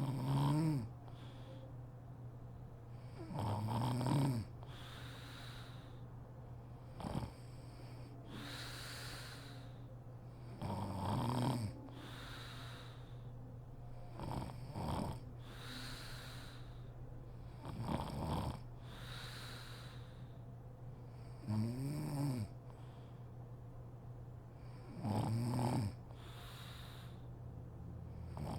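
A sleeping woman snoring in a steady rhythm, one snore about every three and a half seconds, each followed by a breathy exhale.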